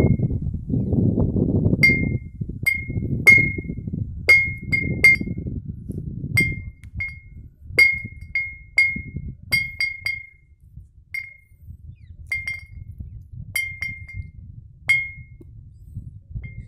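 A glass bottle hung from a string clinks again and again at an irregular pace as a hanging striker, swung by the wind, knocks against it. Each clink rings briefly at one high pitch. This is a wind-driven bottle clinker, a homemade scarer meant to keep nilgai and stray animals off the crop. Wind rumbles on the microphone, strongest in the first half.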